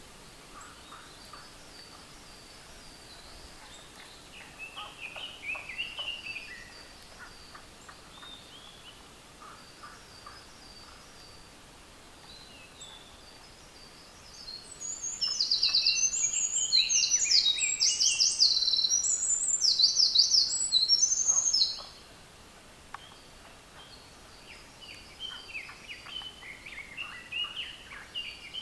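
Eurasian wren singing one long, loud song of rapid high trills and warbles, lasting about seven seconds from about halfway through. Fainter bird song comes before and after it.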